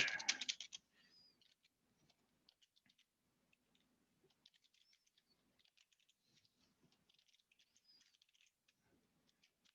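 Faint computer keyboard typing: scattered, irregular key clicks with short pauses.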